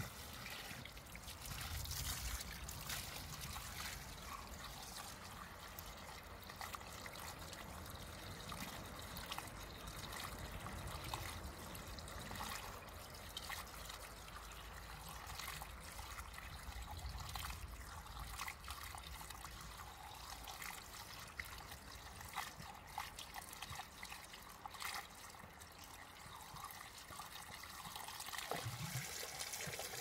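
Spring water running out of the end of a black hose in a thin stream, trickling and splashing onto the stones below.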